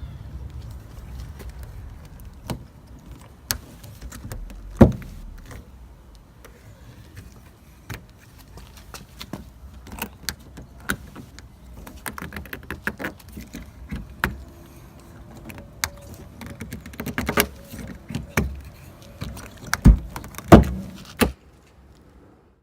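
Handling noise of a suction-cup phone holder being pressed onto a car body panel and pulled to lift out a dent: irregular clicks, taps and knocks. There is a loud thump about five seconds in and two more near the end, after which the sound cuts off.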